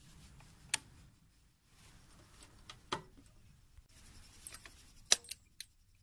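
Faint handling of a motorcycle's ignition key and handlebar switch: a few sharp clicks, the loudest about five seconds in, with the key ring jingling lightly over a low hum.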